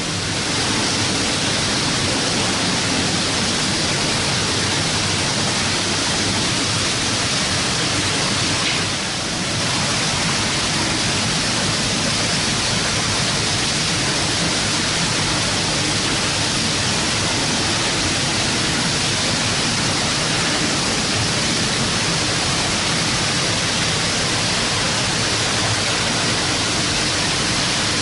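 Steady loud din of a trawler's fish-processing deck: conveyor and processing machinery running with water pouring and splashing, over a faint low hum.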